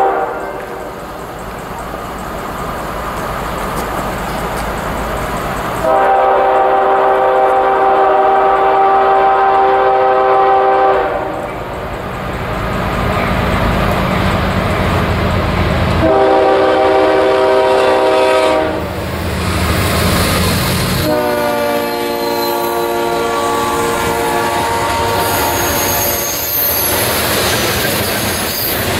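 CSX freight train led by a GE ES40DC diesel locomotive approaching and passing: its air horn sounds a long blast, a shorter one, and a final long blast that drops in pitch as the locomotive goes by, with heavy diesel engine noise between the blasts. Near the end the hopper cars run past with steady wheel noise.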